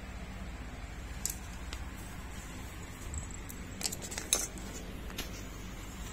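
A few faint small clicks and taps over a low room hum, about a second in and again around four to five seconds in.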